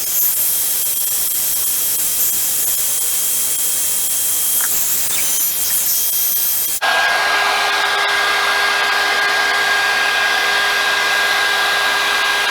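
A John Frieda hot air brush's blower runs steadily with a thin motor whine over a rushing hiss as it dries hair. About seven seconds in the sound cuts abruptly: the whine changes pitch and the blowing gets a little louder.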